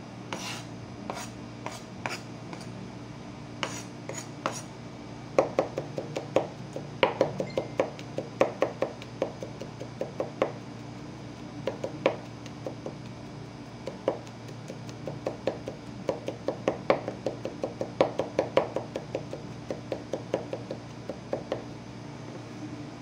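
Chef's knife mincing garlic on a wooden cutting board: a few scattered knocks at first, then quick runs of chopping strokes from about five seconds in, several a second.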